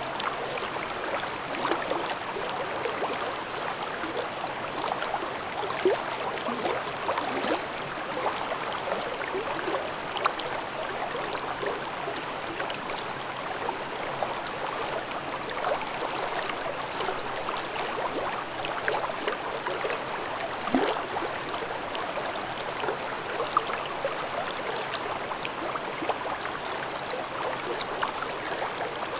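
Forest valley stream babbling steadily, a constant rush of water with small gurgles and splashes throughout.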